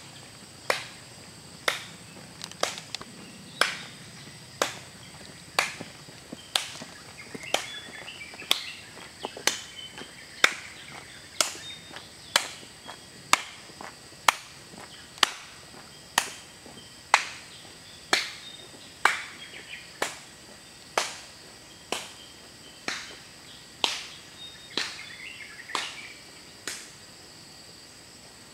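A sharp click repeating very evenly about once a second, stopping a little before the end, over a steady high-pitched insect drone.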